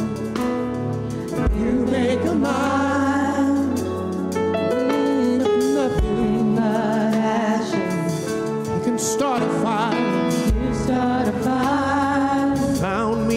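Live gospel worship song: a group of singers led by a male voice, with keyboard accompaniment and held chords whose bass changes every few seconds.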